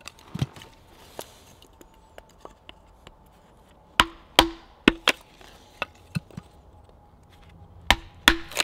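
Agawa ADK26 hatchet splitting a stick of kindling: the blade is set in the stick's end, and hatchet and stick are knocked down together onto a wooden chopping block. There are a few light taps at first, then about six sharp wooden knocks, mostly in pairs, several with a brief ringing tone after them.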